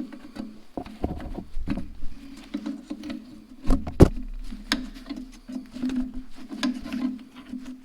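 Irregular clicks, scrapes and light knocks of hand tools working an old push-button part loose from a tractor's wiring, with one sharper knock about four seconds in, over a steady low hum.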